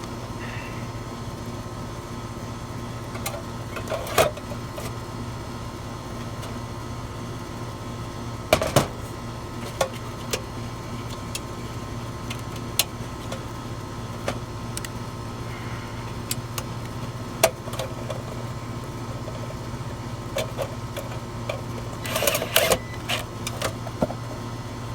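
Scattered clicks, snaps and light metallic knocks of hands fitting a replacement run capacitor and its wire terminals inside an outdoor air conditioner condenser unit, with a cluster of knocks near the end. A steady low hum runs underneath.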